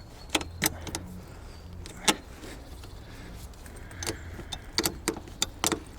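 Irregular sharp metallic clinks and clicks of a wrench and battery-terminal hardware being fitted. The loudest comes about two seconds in, and a quick cluster follows near the end.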